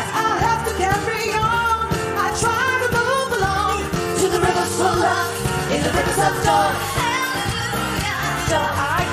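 Live pop song: several women singing into microphones over dance-pop music with a steady beat.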